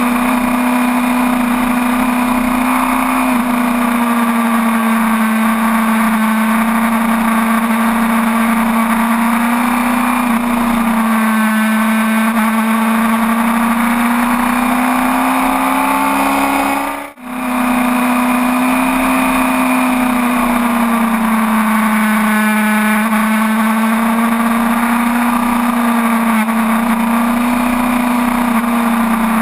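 Inline-four sport bike engine running at fairly steady high revs, its pitch rising and falling gently as the throttle is worked through the corners. The sound drops out for a moment a little past halfway.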